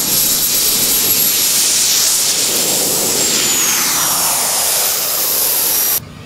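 Radio-controlled model jet at full power on its takeoff run and climb-out: a loud rushing hiss with a high whine that drops in pitch as the jet passes. The sound cuts off suddenly about six seconds in.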